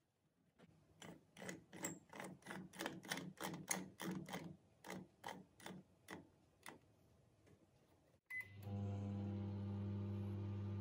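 Microwave oven's time/weight dial turned through its detents: about three sharp clicks a second for several seconds, fading toward the end. Then a short beep, and the oven starts running with a steady low hum.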